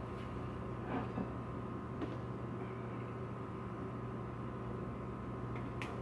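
Plastic spoon handle stirring sticky bread dough in a glass bowl, with a few faint clicks against the glass about one, two and nearly six seconds in, over a steady background hum.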